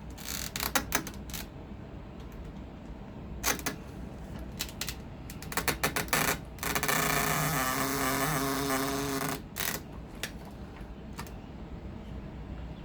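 Lee Load-All 2 shotgun shell reloading press being worked to crimp a 20 gauge hull: scattered metal clicks and knocks, then a steady squeal lasting about three seconds midway, followed by a few more clicks.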